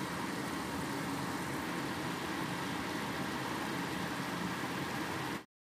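Steady stove noise of a wok simmering a soy-sauce gravy with tempeh, green beans and tofu as the sauce cooks down. It stops abruptly near the end.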